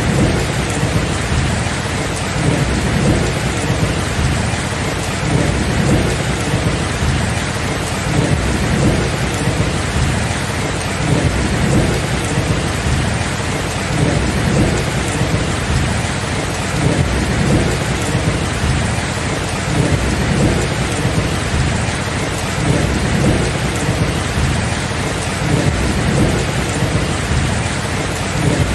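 Steady heavy rain with thunder rumbling low, swelling every few seconds.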